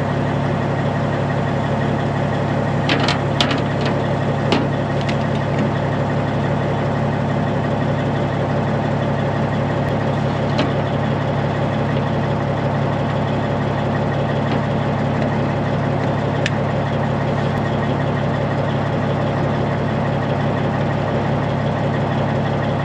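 Kenworth semi truck's diesel engine idling steadily, heard from the deck behind the cab. A few sharp clicks and knocks ring out over it, several in the first five seconds and a couple later, as the trailer's air-line gladhands and electrical plug are coupled.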